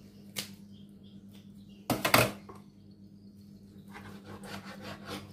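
Large kitchen knife chopping raw chicken on a cutting board: a single knock about half a second in, a louder pair of chops about two seconds in, then a run of lighter, quicker taps near the end.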